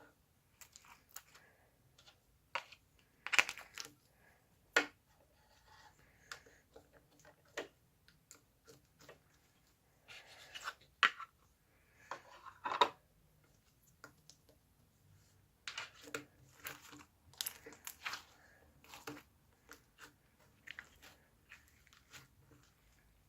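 Hand-played pearl slime being squeezed, poked and stretched, giving irregular sticky pops, clicks and short crackles.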